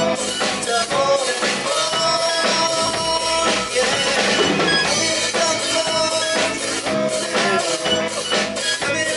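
Rock band playing a song: sung vocal melody over electric guitar, bass, keyboard and a steady drum-kit beat.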